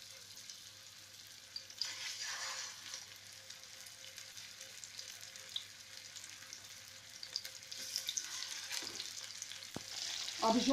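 Chicken rolls sizzling in hot oil in an aluminium frying pan as they are laid in one after another. The sizzle swells for a moment about two seconds in and again near the end, with a few light clicks.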